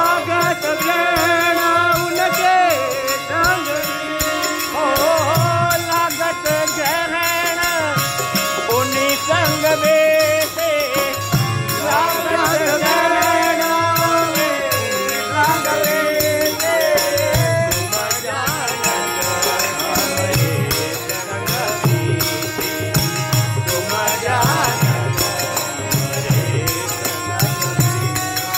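Devotional bhajan music in an instrumental passage: a wavering, bending melody over steady percussion, with a regular beat and a fast rattling shaker-like pulse.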